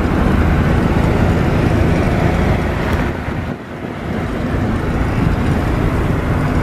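Steady road, engine and wind noise inside an old Suzuki FX hatchback cruising on a highway, dipping briefly a little past halfway through.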